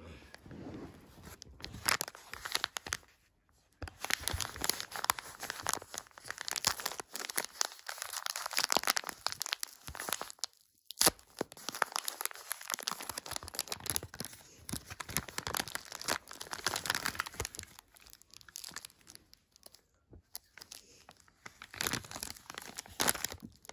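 Brown kraft paper being torn open and crinkled by hand, in irregular rustling rips, with one sharper snap about eleven seconds in.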